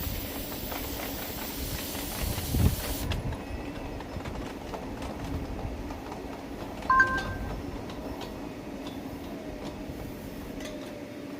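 A 5-inch gauge live steam locomotive with steam hissing, which cuts off suddenly about three seconds in, followed by a low thump and light clicking as it works on the track. About seven seconds in comes a brief, sharp, high two-tone sound, the loudest moment.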